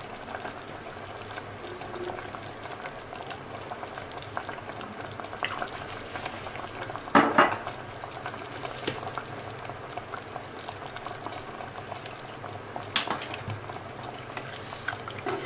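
Thick soy-and-cornflour chili sauce bubbling at a steady boil in a pan, with a constant fine popping of bubbles. Two sharper knocks, one about halfway through and one a few seconds later.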